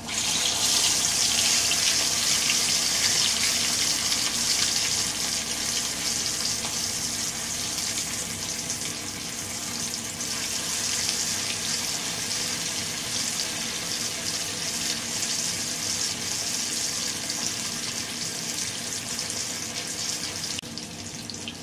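Masala-coated fish pieces frying in hot oil in a pan: a steady, hissing sizzle that starts suddenly and eases off a little after the first few seconds.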